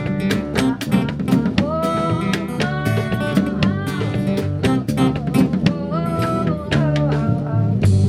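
Live acoustic music: guitar strumming in a quick, steady rhythm with hand drums, under a held, gently bending melody line, in an instrumental passage of the song.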